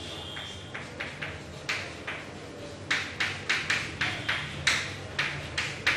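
Chalk writing on a blackboard: a run of short taps and scratches, one per stroke of the letters, a few at first, then quicker and louder from about halfway.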